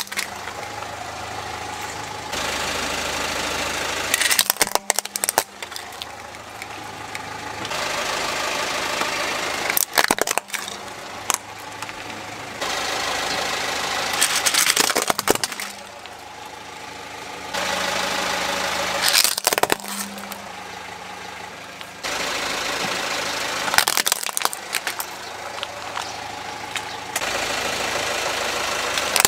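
Car engine idling while its tyre rolls over plastic toy trucks and a toy robot, crushing them in a cluster of sharp cracks and crunches about every five seconds, with the engine hum in between.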